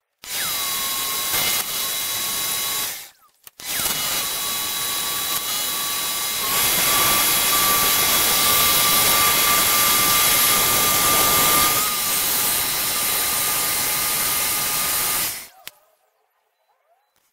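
Jigsaw mounted under a homemade jigsaw table running twice: a short run of about three seconds, then after a brief pause a longer run of about twelve seconds with a steady whine. The longer run grows louder from about six seconds in as the blade cuts wood, and each run stops abruptly.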